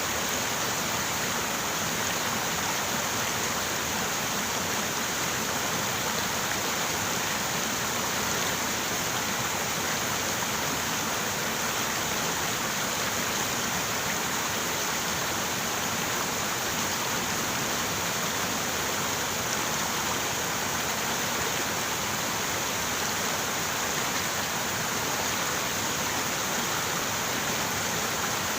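River water running over rocks: a steady, even rushing with no breaks or changes.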